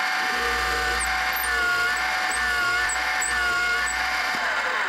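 Drill press boring into a walnut block with a tapered plug cutter: a steady motor whine over the noise of the cutter chewing wood. The whine drops away near the end.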